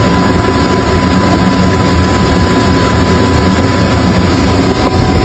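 Funuoer Smart6000 air compressor running steadily at full load with its motor driven at 200 Hz: a loud, even mechanical hum with a thin steady high tone over it.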